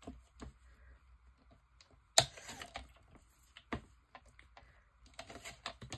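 Scattered light clicks and taps of paper and plastic as a cut-out magazine strip is slid into place on a paper trimmer, with one sharp click about two seconds in.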